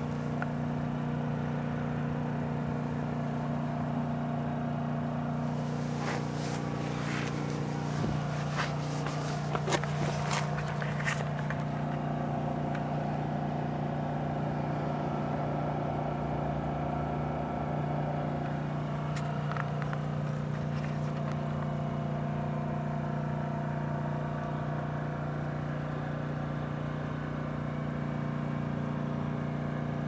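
A steady low mechanical hum at one constant pitch, running without change, with a few short clicks and knocks between about six and eleven seconds in.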